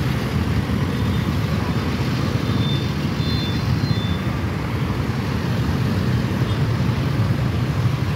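Road traffic of motorcycles and cars running past at an intersection, a steady rumble with no single vehicle standing out.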